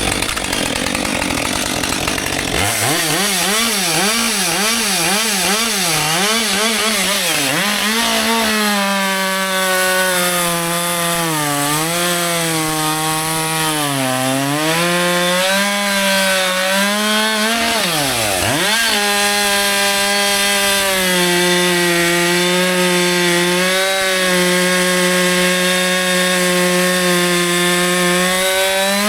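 Husqvarna 564 XP two-stroke chainsaw running at high revs in a cut. Its engine note sags and recovers several times as the chain loads in the wood, drops sharply and climbs back up about 18 seconds in, then holds fairly steady near the end.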